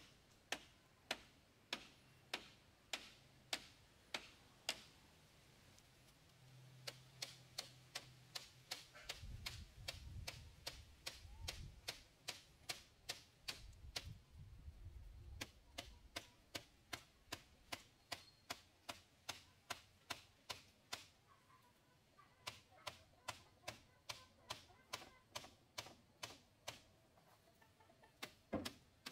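A steady series of sharp taps or knocks, about two a second, stopping twice for a second or two, with a low rumble under them in the middle.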